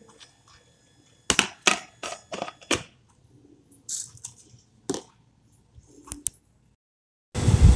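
Hard plastic clicks and knocks as a plastic lid is fitted onto a clip-lock food container and a red plastic scoop is handled and set down on it: a quick run of clicks, then a few single ones. A loud burst of noise cuts in near the end.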